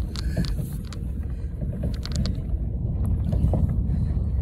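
Pickup truck moving along a rough dirt track, heard from the open bed: a steady low rumble with wind on the phone microphone and scattered knocks and rattles.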